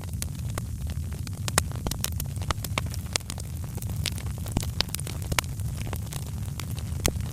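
Fire crackling: frequent irregular sharp pops and snaps over a steady low rumble of burning.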